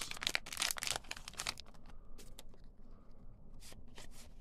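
Foil wrapper of a baseball card pack crinkling and tearing, with a dense run of sharp crackles in the first second and a half, then quieter, scattered rustling.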